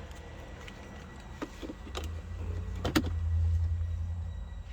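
Low, steady hum of a 2008 BMW 335i idling, growing a little louder about halfway through. Several light clicks come through it, the sharpest about three seconds in.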